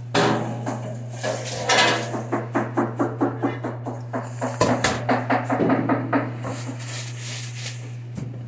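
A utensil mixing cut fruit in a metal bowl, clinking and knocking against the bowl in a quick run of strokes, about three a second, over a steady low hum.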